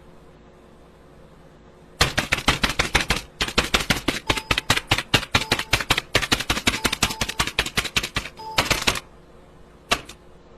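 Rapid runs of sharp clicks, about ten a second, starting about two seconds in and stopping about two seconds before the end, with a couple of isolated clicks after that.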